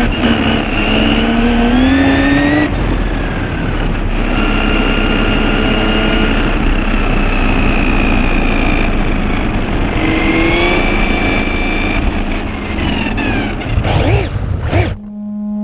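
High-speed electric RC car running, its motor whine rising and falling in pitch with the throttle over tyre noise. The sound drops out suddenly near the end.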